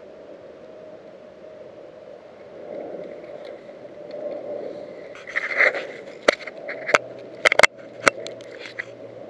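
Fingers handling a quadcopter's onboard camera right at its microphone: scraping and a run of sharp clicks and knocks in the second half. Underneath is a steady low rustling hiss, and a faint low hum comes in near the end.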